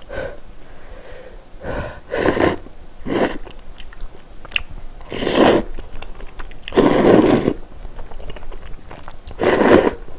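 Close-up slurping of hot, spicy kalguksu (knife-cut noodles) in broth. There are five loud slurps, some about half a second long, with soft chewing clicks in between.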